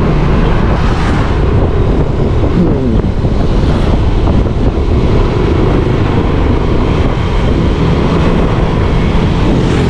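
Wind buffeting an action camera's microphone with a Yamaha Aerox 155 scooter's single-cylinder engine running underneath, cruising steadily at about 40 km/h.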